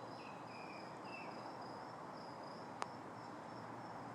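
Crickets chirping steadily, an even pulsed trill over quiet evening background noise, with a few fainter short chirps and a single sharp click about three seconds in.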